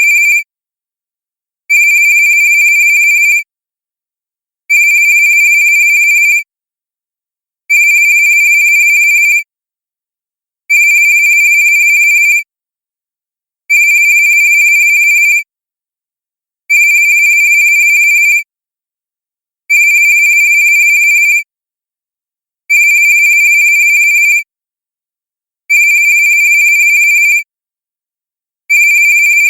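Cartoon-style cell phone ringtone: a steady, high electronic ring in identical bursts of just under two seconds, repeating about every three seconds with silence between.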